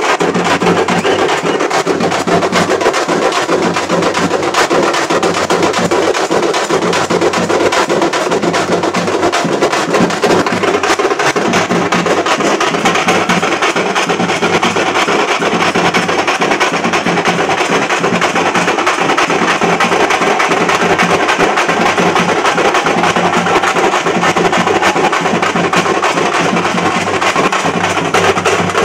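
A group of parai frame drums beaten with sticks in a fast, dense, unbroken rhythm.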